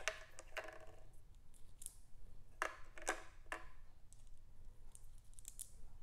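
Small river rocks clacking as they are set one by one into a tabletop fountain's base: a string of sharp, separate clicks, a few of them ringing briefly, with fainter ticks in the last couple of seconds.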